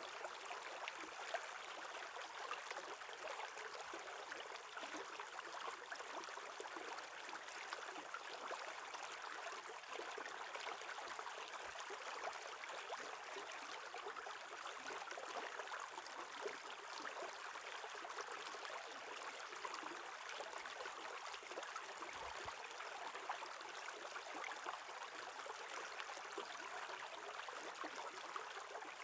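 Shallow stream water running over stones beside an edge of ice, a steady babble made of many small splashes and bubbles.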